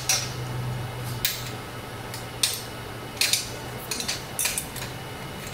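Sharp metallic clinks and knocks as a steel bar clamp is handled and set on aluminium square tubing lying on a steel welding table, about seven separate knocks spaced a second or less apart. A low steady hum runs underneath.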